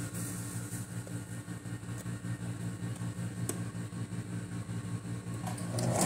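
Singer electric sewing machine running slowly: a low motor hum with a fine, even pulsing of the stitches. It speeds up and gets louder near the end.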